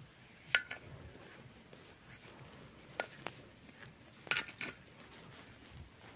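Paintbrush working over a metal gate frame, with a few light clicks and taps as the brush knocks against the metal.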